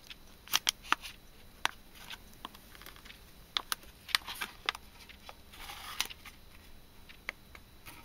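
Foil carton of solid fuel being pried and peeled open with a titanium tool: scattered sharp clicks and light crinkling of foil, with a longer rustle about six seconds in.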